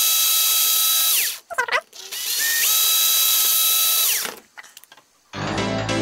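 Electric drill with a thin bit boring through a clear plastic case, run twice: each time it winds up to a steady whine, holds for a couple of seconds and winds down. Background music starts near the end.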